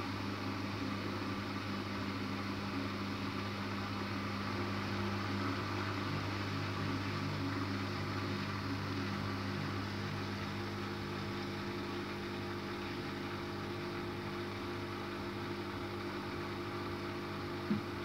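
Miele W 2597 front-loading washing machine in its intermediate spin on a 75°C cottons wash: the drum spins steadily with a constant motor hum. A sharp click comes near the end.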